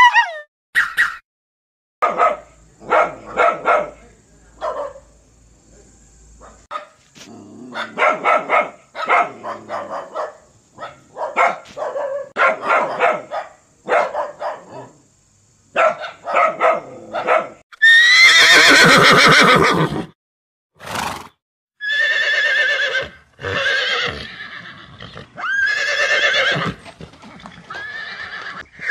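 A dog barking in quick runs of short barks, then, about eighteen seconds in, a horse neighing: one long loud whinny followed by several shorter whinnies.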